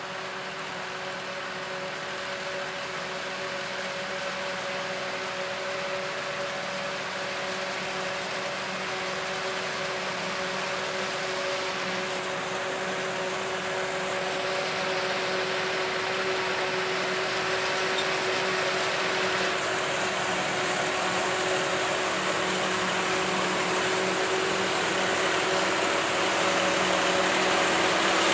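Self-propelled forage harvester chopping maize and blowing the chopped silage into a tractor-drawn trailer: a steady machine whine over a dense rushing noise, growing gradually louder as the machines draw closer.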